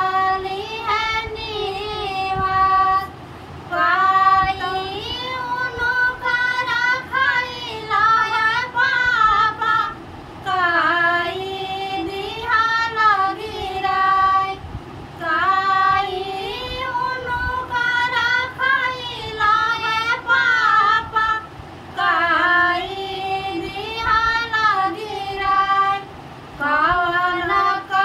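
Women singing a vivah geet, a North Indian wedding folk song, together in one melodic line with no instruments, in long phrases broken by short pauses for breath.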